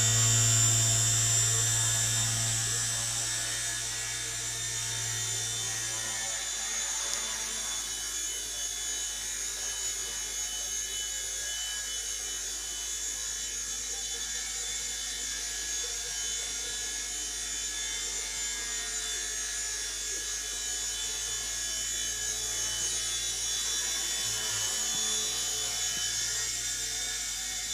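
Small electric RC helicopter's motor and rotor blades whirring in a steady buzzing whine as it flies. It is loudest in the first few seconds while close, then steadier and fainter as it moves off.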